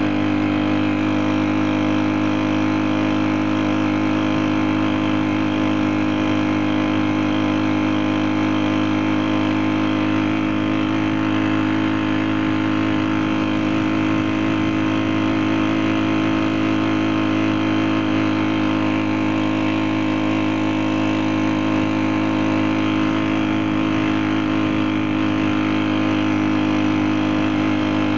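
Small 35 cc four-stroke engine of a lightweight motorbike running steadily at constant speed, its pitch hardly changing throughout.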